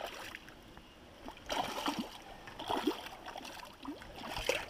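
A hooked brown trout thrashing in shallow water, splashing in several short bursts over the steady run of the stream.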